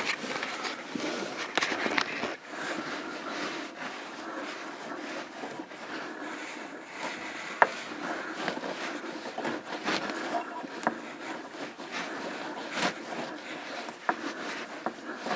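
Propane supply tubing being cut to length by hand: faint irregular scraping and handling noise with a few sharp metallic clicks, the clearest about halfway through.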